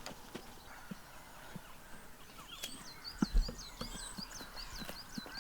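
Short, irregular crunching clicks of a horse tearing and chewing lawn grass. From about halfway through, a small bird repeats a high chirp about four or five times a second, and there is a dull thump a little after the chirps begin.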